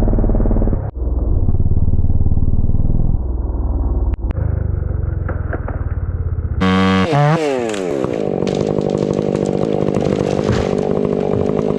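Stihl 500i fuel-injected two-stroke chainsaw running at full throttle through a cut, sounding heavy and muffled. About seven seconds in the revs drop sharply and it settles into a steady idle.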